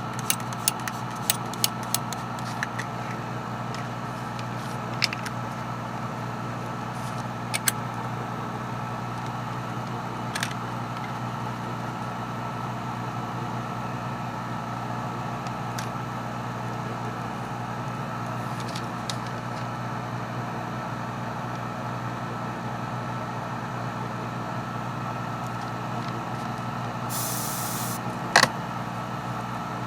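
A small electric motor hums steadily, as in a hobby airbrush setup. Light clicks come in the first few seconds, and a short hiss of air, like an airbrush spraying, comes near the end.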